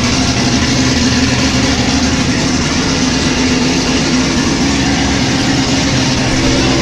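Chevrolet Corvette C7 Z06's V8 idling loud and steady just after a cold start, with an even drone and no revving.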